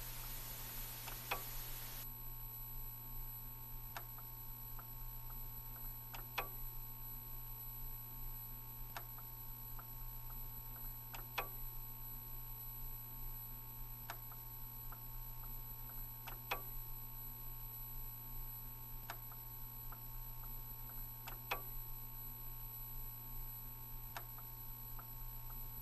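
Faint steady hum under soft, regular ticks: a clearer tick about every two and a half seconds, with fainter ticks between. A light hiss cuts off about two seconds in.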